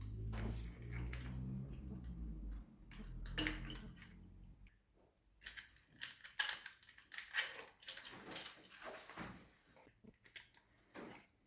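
Small metal parts and hand tools clicking and clinking in quick irregular bursts as a throttle cable is hooked onto a motorcycle carburettor. A low steady hum runs under it and stops about four and a half seconds in.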